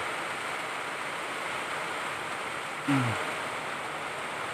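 Steady rushing noise of a fan running at high speed. About three seconds in, a short low grunt falls in pitch.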